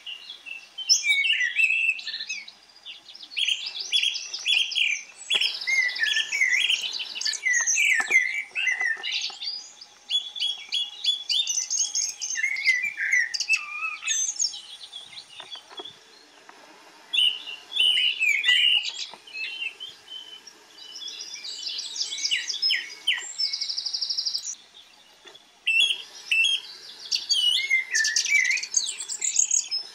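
Several songbirds singing: a busy chorus of chirps and short whistled phrases, with a high, buzzy trill repeated several times.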